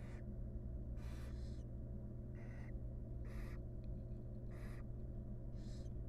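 Barn owl nestlings giving their hissing, snore-like begging calls: about six short, rough hisses roughly a second apart. A steady low electrical hum runs underneath.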